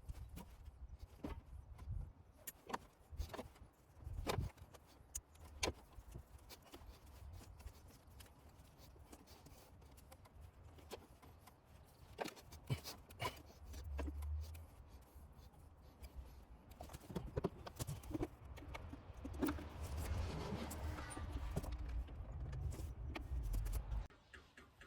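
Irregular clicks, clinks and knocks of hoses, clamps and hand tools being worked loose in a pickup's engine bay, with a low rumble of handling noise underneath. The handling gets busier near the end.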